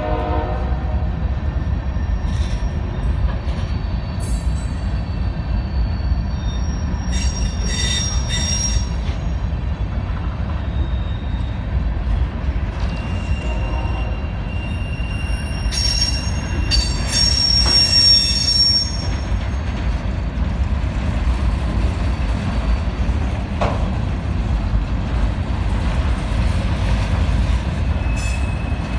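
Covered hopper cars of a slow-moving CSX freight train rolling past: a steady low rumble of steel wheels on rail, with high-pitched wheel squeals coming and going and a louder stretch of clatter and squealing a little past the middle.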